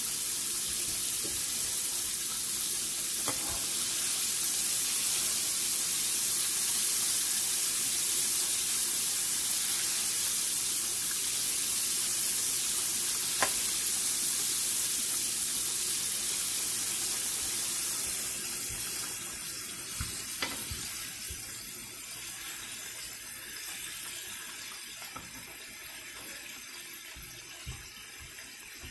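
Chicken pieces deep-frying in hot oil in a kadhai: a steady, bubbling sizzle that grows gradually quieter over the last ten seconds or so as the chicken browns. A few light clicks of a slotted spoon against the pan.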